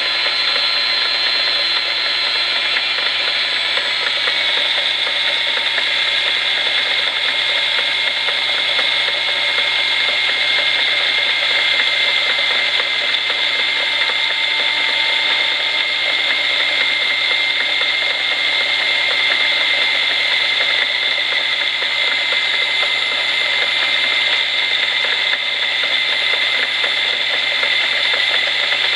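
Electric rotary tool (die grinder) running with a steady high whine as its bit bores into a rubber stopper spinning in a lathe, the lathe running underneath.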